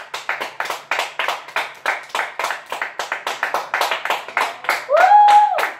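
Several people clapping their hands, sharp uneven claps about five a second. Near the end a brief high tone sweeps up and holds for about a second.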